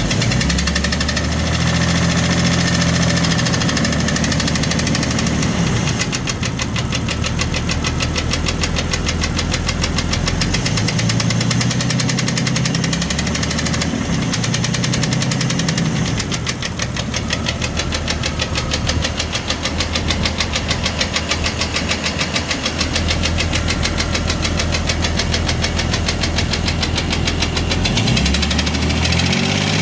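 1999 Jeep Cherokee XJ's 4.0-litre straight-six running with a loud, rapid, even tapping that keeps time with the engine. The owner puts it down to piston slap from a broken piston skirt. The engine speed shifts a few times and rises briefly near the end.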